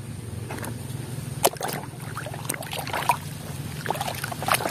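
Muddy water sloshing and splashing in a plastic tub as a toy is swished through it, with scattered light knocks of plastic toys.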